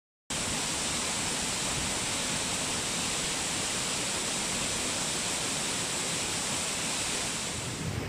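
Waterfall: a steady, even rush of falling water that starts abruptly a moment in after a brief silence.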